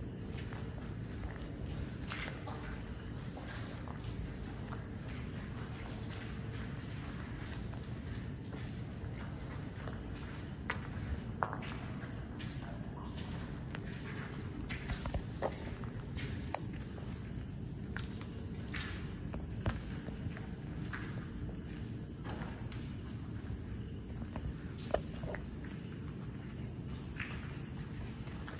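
Steady high-pitched chirring of night insects, with scattered footsteps and sharp clicks, most of them in the second half.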